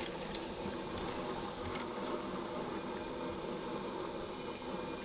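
Propane turkey-fryer burner running under a large aluminium pot of blue crabs in water just under a boil: a steady hiss with water bubbling around the crabs. A steady high-pitched insect trill sits above it.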